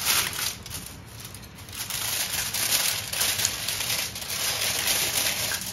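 Aluminium foil crinkling and rustling as it is folded and pressed tightly around a rolled food parcel, a dense crackle that eases for a moment about a second in and then picks up again.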